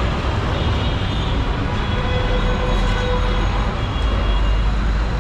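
Busy city street traffic: a steady mix of engines and road noise, with a deep engine rumble that swells from about two seconds in.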